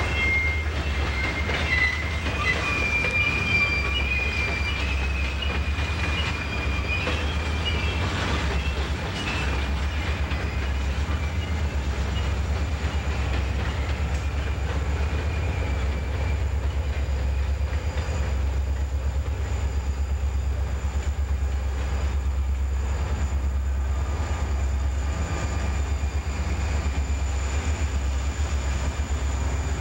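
Freight train of diesel locomotives and hopper cars rolling slowly past, with a steady low engine rumble. High-pitched wheel squeal sounds through the first half and fades out about halfway through.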